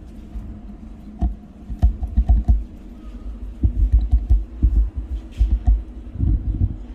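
Irregular low thumps and rumbling from a handheld camera being carried while walking: footsteps and handling knocks on the microphone.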